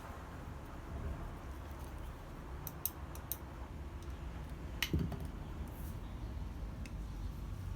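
Light metallic clicks of steel stock being handled, a few near three seconds in and one louder knock about five seconds in, over a steady low rumble.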